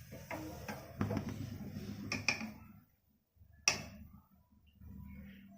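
Light clinks and knocks of a metal kitchen utensil against a pan or plate as fried snacks are lifted out: several small knocks in the first two seconds or so, then one sharp clink a little past the middle.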